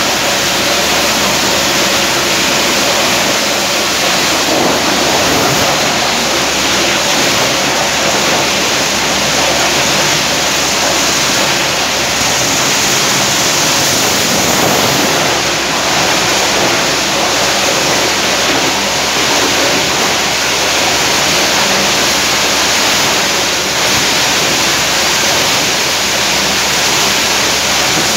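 Kalender plastic crushing machine (granulator) running with a loud, steady, dense noise that holds without a break.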